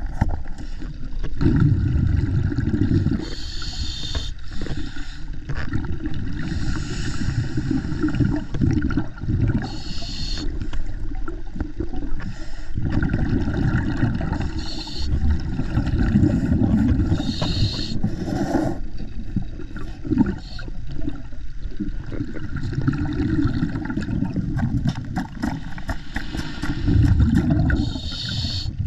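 Underwater sound of a diver cleaning a boat's hull: a steady low rumble and swish of water, with bursts of hissing and bubbling every few seconds from the diver's breathing and exhaled bubbles, and some scraping against the hull.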